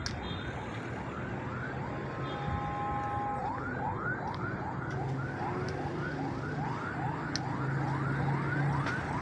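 Electronic siren-like wail: a fast rising sweep repeating about two to three times a second, starting a few seconds in, after a short steady multi-pitch tone. A low hum runs underneath.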